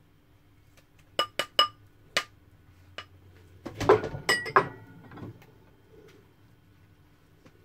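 A metal serving spoon and dishes clinking against a steel pot and crockery: a quick run of sharp, ringing clinks, then a longer clatter of dishes about four seconds in.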